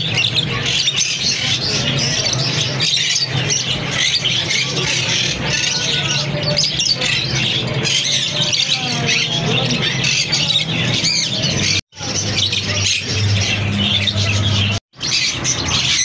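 A flock of caged parakeets chattering, chirping and squawking all at once in a dense, continuous din. The sound cuts out briefly twice near the end.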